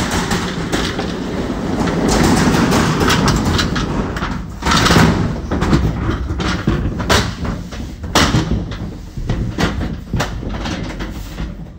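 Accordion hurricane shutter being slid shut along its track: a rolling rattle of the folding blades, then from about four seconds in a string of sharp clacks and knocks as the panels meet the floating locking bar and close.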